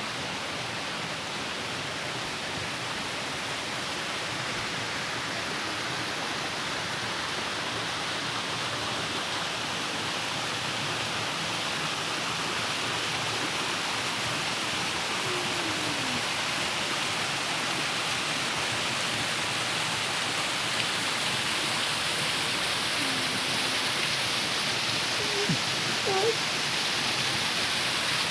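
A waterfall rushing steadily, a constant hiss of falling water that grows slightly louder over time. A few faint short chirps or calls rise above it in the second half.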